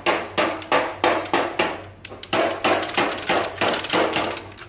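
Manual lever chain hoist being ratcheted, giving a quick, even run of sharp metallic clicks, about three a second, as its chain is pulled taut on a car's front end.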